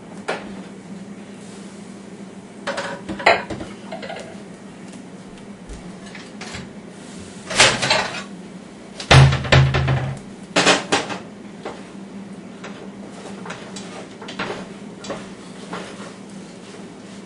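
Kitchen clatter: pots, pans and dishes knocking and scraping in scattered bursts, the loudest a run of clattering knocks with a heavy thud about nine seconds in. A steady low hum sits underneath.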